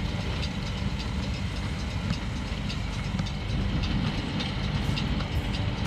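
Fendt tractor pulling a McHale round baler through hay, the engine running steadily under load, with irregular clicks and knocks from the baler's working parts.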